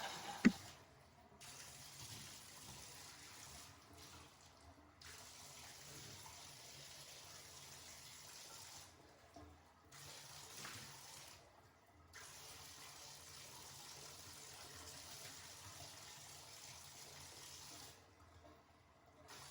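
Faint running water, as shampoo is rinsed off a dog in a bathtub; the flow comes in stretches broken by short pauses.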